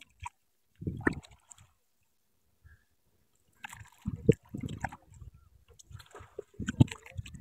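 Water sloshing and splashing around a wooden rowboat as it is rowed with oars, in irregular bursts with a quiet gap early on, and two sharp knocks in the second half.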